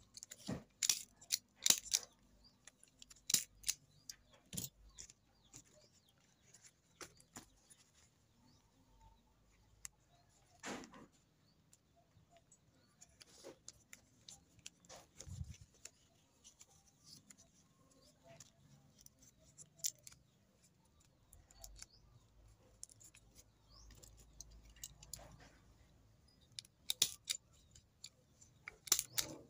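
Fresh banana leaves being folded and wrapped by hand: soft rustling broken by scattered sharp crackles and clicks, with a cluster of louder clicks in the first few seconds and again near the end.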